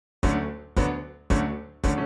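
Solo piano music that comes in about a fifth of a second in, with chords struck about twice a second, each dying away before the next.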